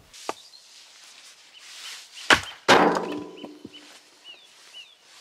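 An axe chopping firewood on a chopping block: two sharp strikes into wood in quick succession about two and a half seconds in, the second louder and followed by a short ringing rattle. Small birds chirp in the background.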